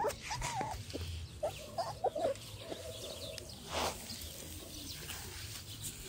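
Young puppies whimpering and squeaking: short, high cries that rise and fall, with one longer, steadier whine about three seconds in.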